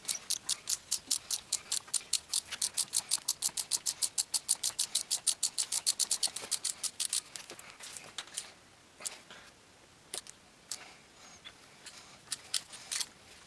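Ratchet wrench clicking in a fast, even run of about seven clicks a second for some seven seconds, backing out an exhaust stud by a nut welded onto it. After that come a few scattered metallic clicks and clinks.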